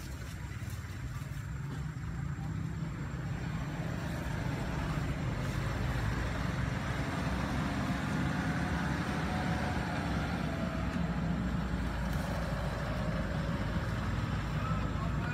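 Low, steady rumble of a motor vehicle engine running nearby, growing a little louder over the first few seconds and then holding.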